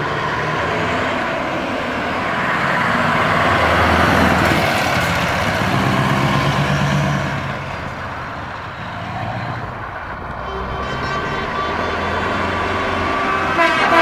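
Truck engine running through an open exhaust, swelling louder toward the middle, easing off, then building up again near the end.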